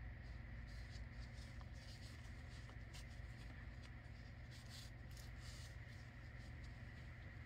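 Faint, intermittent rustling and scratching of cotton yarn and crocheted fabric being handled as a yarn end is woven in with a yarn needle, over a steady low hum.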